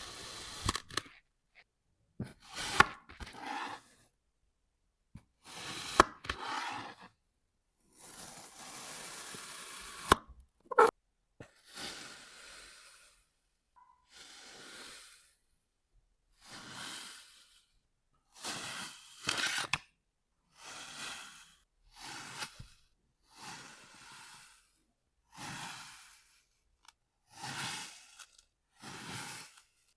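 Kinetic sand being cut: a run of short slicing sounds, each about a second long with brief silences between, and a few sharp clicks among them.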